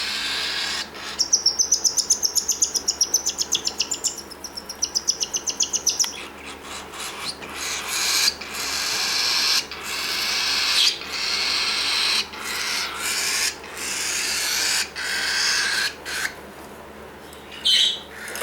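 Baby bird begging while a parent feeds it: a fast run of high chirps, about ten a second, then raspy hissing begging calls mixed with short clicks and fluttering until near the end.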